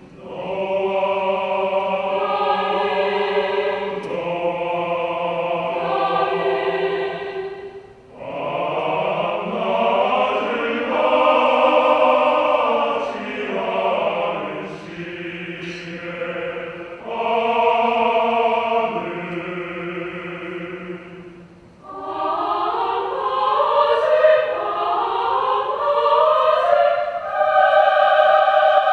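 Large mixed choir singing a Korean choral work in held chords. The phrases break off briefly about eight and twenty-two seconds in, and the last phrase swells with pitches sliding up and down.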